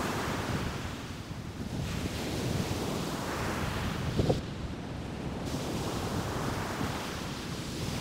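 Ocean surf breaking and washing up a sandy beach, a steady rushing noise that swells and ebbs, with wind buffeting the microphone.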